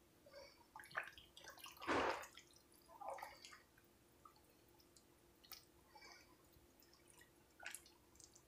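Silicone spatula stirring a thick, creamy pasta mixture with a raw egg in a glass baking dish: faint wet squelches and scattered soft clicks, loudest about two seconds in.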